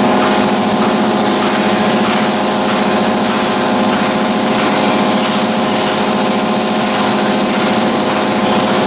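Press brake's motor running with a steady, unchanging hum.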